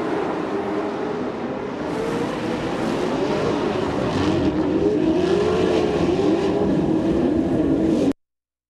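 Several off-road racing truck engines running hard and revving, their pitch rising and falling, until the sound cuts off abruptly about eight seconds in.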